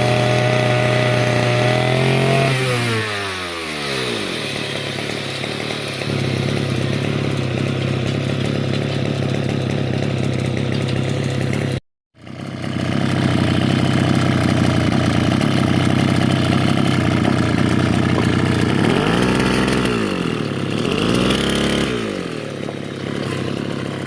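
Grass cutter's small engine running after its clogged carburetor was cleaned: it drops from high revs to a steady idle a few seconds in, and after a sudden break is revved up and back down twice near the end.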